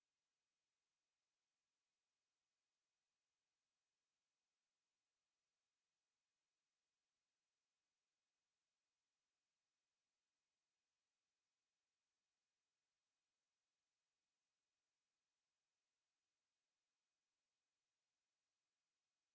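A pure sine-wave test tone at 11,093 Hz: one high, steady note held unchanged, with nothing else under it. It is a speaker-test and speaker-cleaning tone.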